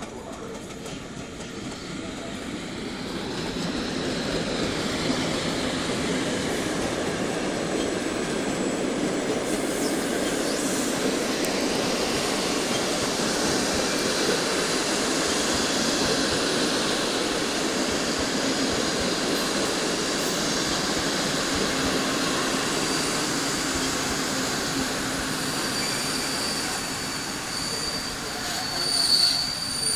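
Passenger train hauled by a PKP EP08 electric locomotive arriving and rolling past close by: a steady rumble of wheels on rails that builds over the first few seconds. Near the end a high squeal rises from the wheels as the train slows for its stop.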